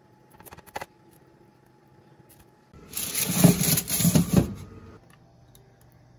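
A foil-lined metal baking tray scraping and rattling against the oven's wire rack as it is slid in. It is loudest twice, cutting off abruptly. A few light clicks come just before it, about half a second in.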